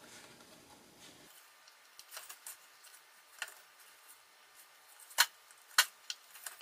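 Light clicks and taps of a fibreglass circuit board and its resistor leads being handled as resistors are pushed into the board, with two sharper clicks near the end as the board is turned over on the bench.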